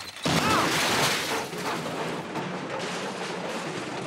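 A metal garbage can crashes over about a quarter second in, then clatters and rattles steadily as it rolls along the pavement.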